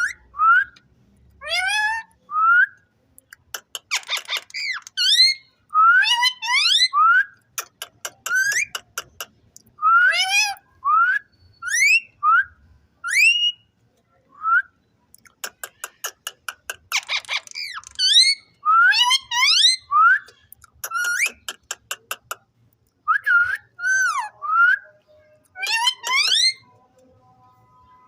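Ringneck parrot whistling: a string of short, rising whistle notes mixed with fast buzzy chatter. The sounds come in bursts with short pauses, and the bird falls quiet near the end.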